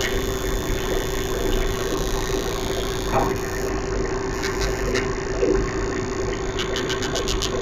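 Danionella cerebrum, a tiny translucent fish, making its sound calls: a few short trains of rapid sharp clicks, the longest near the end, over a steady low hum. The pulses come from its drumming cartilage, specialised rib and fatigue-resistant muscle.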